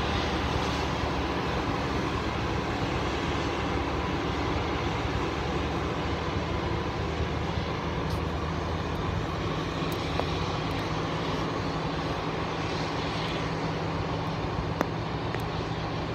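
John Deere combine harvester running steadily under load while harvesting grain: a continuous engine and threshing-machinery drone with a steady low hum, and a single sharp tick near the end.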